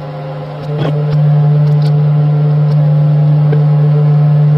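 A steady electrical hum from a kitchen appliance, one low tone with overtones, growing louder about a second in, with a few faint light ticks over it.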